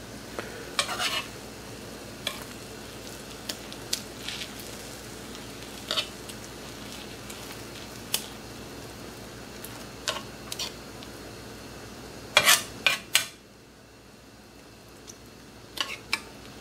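Metal spatula scraping and tapping against a cast-iron skillet as beaten eggs are pushed around, over a steady low sizzle of the eggs frying. The scrapes come every second or two, with a quick run of louder ones about twelve seconds in.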